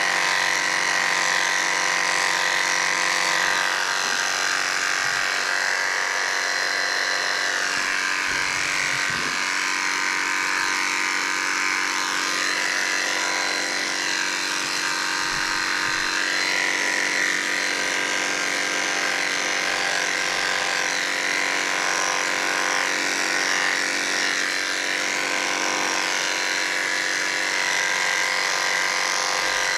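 Electric pet hair clippers running steadily, a continuous motor hum and buzz, while clipping a cat's fur.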